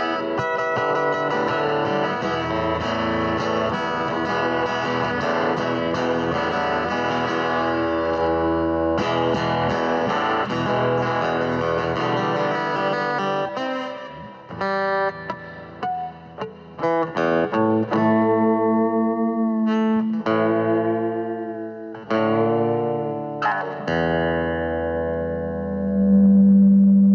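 Instrumental music: dense continuous playing, then separate notes and chords ringing out and fading, some bending in pitch, ending on a long held low note.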